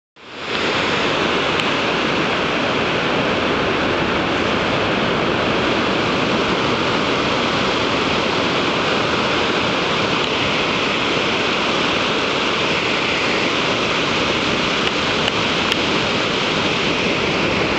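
Ocean surf breaking offshore and washing up the beach, a continuous steady rushing that fades in at the very start.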